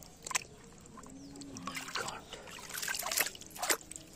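Water sloshing and trickling in a small rock hole as a hand works in it and a metal chain is pulled up through the water, with a few sharp splashes, most of them in the second half.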